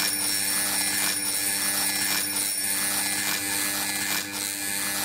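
Steady electrical buzzing hum, like a neon tube, with a faint crackle about once a second.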